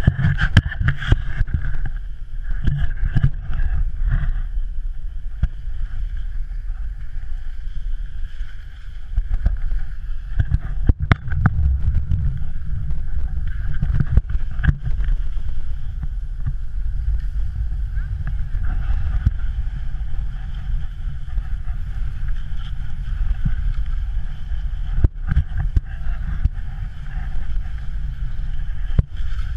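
Wind buffeting the microphone of a GoPro Hero 3 on a snowkiter's pole while he rides on skis across snow: a steady, loud low rumble with a thin hiss above it. A few sharp knocks come through, loudest around the middle and near the end.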